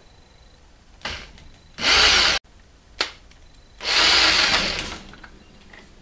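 Power hand drill run at low speed in short trigger bursts: a brief blip about a second in, a loud half-second run near two seconds that cuts off sharply, a click near three seconds, and a run of about a second with a motor whine from about four seconds in. The drill is winding thin steel wire from a cable around a drill-bit mandrel to form a small coil spring.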